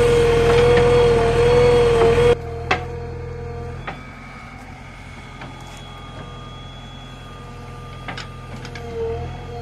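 JCB 3DX backhoe loader's diesel engine working under load with a steady whine as the backhoe arm lifts and swings a bucket of soil. About two seconds in the sound cuts abruptly to a quieter engine run, with a few short knocks from the bucket and arm.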